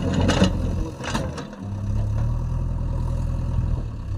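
JCB 3DX backhoe loader's diesel engine running steadily at work, with a couple of short knocks in the first second or so and a brief dip in the engine sound about a second and a half in.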